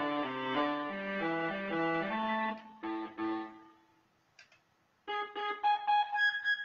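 Akai EWI 5000 wind synthesizer playing its 'Aggro Pluck' preset (no. 68), a plucked synth voice. It runs through a quick phrase of short notes, stops for about a second, then comes back on higher notes near the end, where it gets pretty aggro at the top end.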